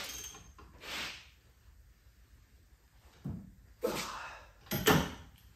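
About five separate metal clunks and knocks from hands working on a car's rear brake caliper and wheel hub, the loudest near the end.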